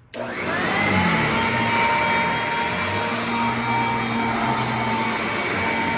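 Sanitaire commercial upright vacuum starting up on carpet: the motor whines up to speed within about a second, then runs steadily.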